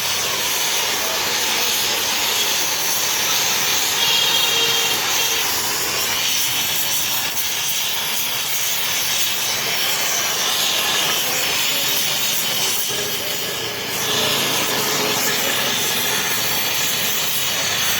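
Welding on a car cylinder head's valve seat: a steady hiss from the torch or arc, with a brief dip about fourteen seconds in.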